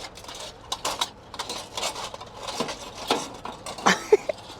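Metal clattering, scraping and knocking as an oven rack and the pizza on it are handled in a small oven, with a few sharper knocks near the end.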